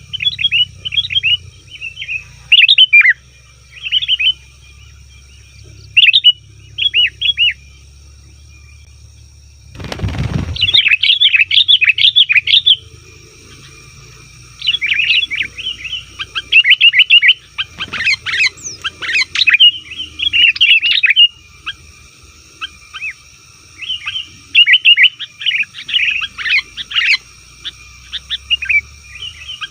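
Sooty-headed bulbuls (kutilang) chattering in busy bursts of short, quick chirps, the noisy calling used as a lure for wild bulbuls. A short loud burst of noise cuts in about ten seconds in.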